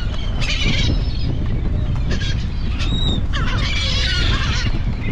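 A flock of gulls squawking and calling repeatedly as they swarm low over a pile of shrimp on a boat deck, with the heaviest calling near the end, over a steady low rumble.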